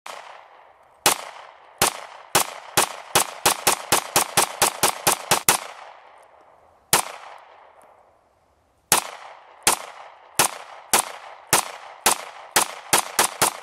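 Smith & Wesson M&P Pro Series CORE pistol in .40 S&W fired rapidly. The first string of about fifteen shots quickens to about five shots a second, each report trailing off. A lone shot follows, then a second quickening string of about ten.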